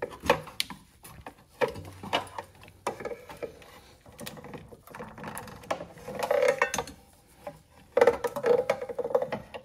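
Clicks, knocks and scraping of a rigid metal coolant pipe being worked into place by hand among hoses and brackets in a car's engine bay. Longer scraping rubs come about two-thirds of the way through and again near the end.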